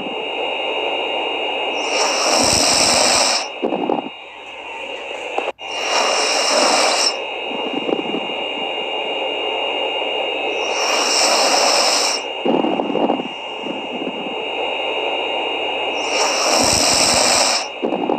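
Snoring: four loud, hissing breaths at a slow, even rhythm, one about every four to five seconds, with softer breaths between them.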